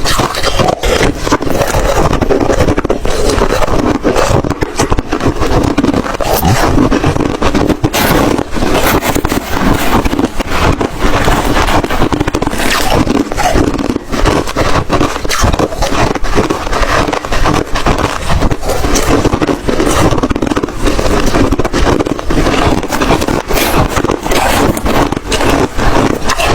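Close-miked chewing of crunchy white ice, a dense run of irregular crunches and cracks.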